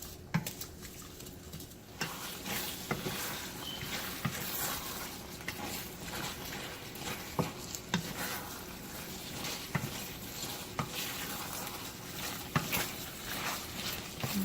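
Pan of sauce thickened with cornstarch and water sizzling and bubbling on the stove, with scattered clicks of a utensil against the pan. The sizzle grows fuller about two seconds in.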